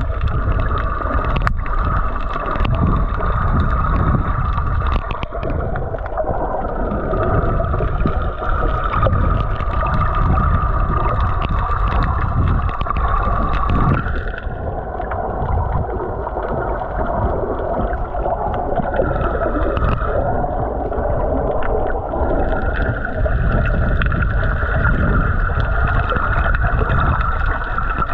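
Underwater noise: a steady muffled rush of water, with a drone whose pitch dips and rises again now and then.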